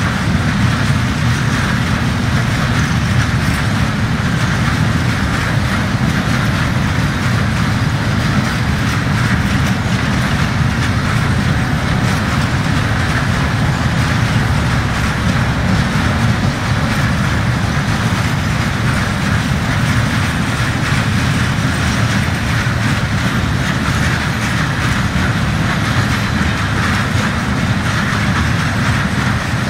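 Long freight train of high-sided open wagons loaded with ballast rolling steadily past on the rails: a continuous, even rumble of wheels on track that neither builds nor fades.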